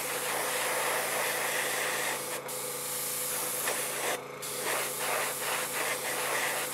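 Paasche double-action airbrush hissing as it sprays a light weathering coat, the spray cutting off briefly twice, about two and four seconds in.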